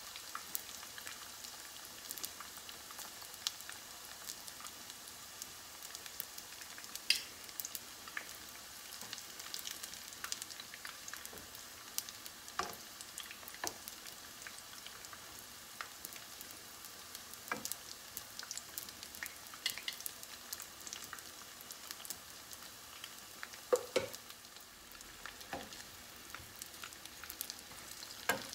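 Egg-roll-wrapped shrimp tempura deep-frying in a pot of oil: a steady sizzle with constant fine crackling. A few sharper clicks come as metal tongs turn the rolls in the pot.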